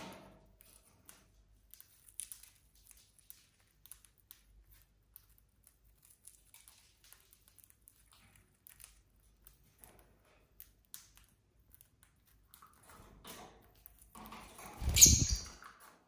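Lovebirds nibbling a millet spray: scattered soft ticks and clicks of beaks cracking seeds. Near the end a brief, loud flutter of wings as another lovebird lands by the millet.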